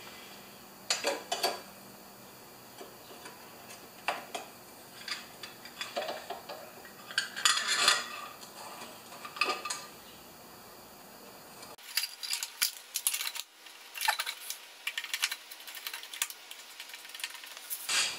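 Hand work on a Briggs & Stratton push-mower engine: scattered metallic clicks, clinks and scrapes of a hand tool and engine parts, coming closer together in the last few seconds.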